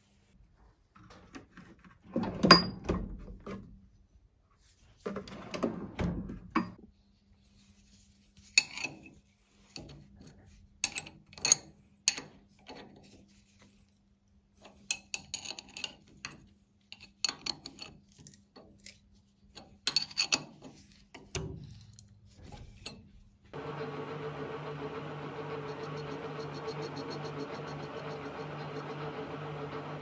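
Metal clanks and knocks of hand tools on a lathe's tool post as its bolts are tightened with a spanner. About 23 seconds in, the metal lathe's motor starts and runs with a steady hum.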